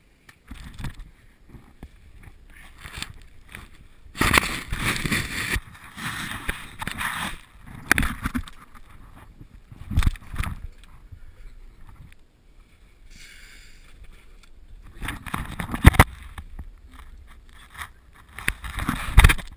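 A caver crawling through a tight rock passage: irregular bouts of clothing and gear scraping and rustling against the rock, with several sharp knocks.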